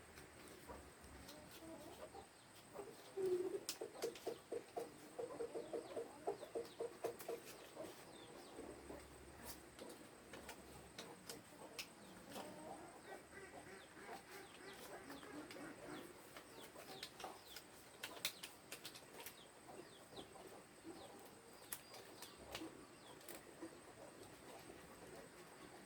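Chickens clucking, with a run of quick, repeated clucks from about three to eight seconds in, then quieter, scattered clucking.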